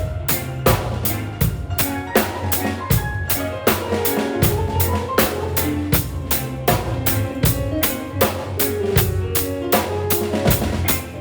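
A band playing, with a drum kit hitting a steady beat of about four strikes a second over a bass line and held melodic notes.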